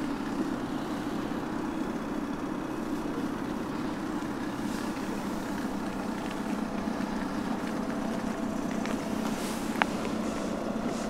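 Steady low rumble of motor-vehicle noise, with one sharp click about ten seconds in.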